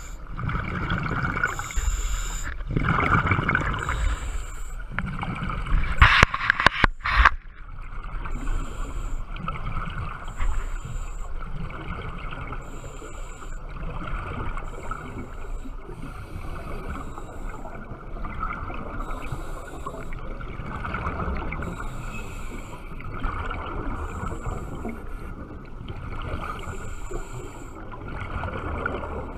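Scuba regulator breathing heard underwater: gurgling rumble of exhaled bubbles with a hiss about every two seconds, muffled through a camera's waterproof housing. A quick cluster of loud sharp knocks comes about six seconds in.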